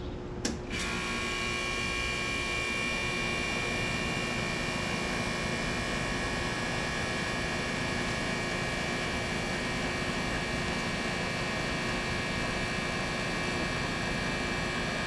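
2007 Rheem Value Series heat pump outdoor unit starting up in cooling mode: a click about half a second in, then the unit comes on and runs steadily with a hum and a high steady whine.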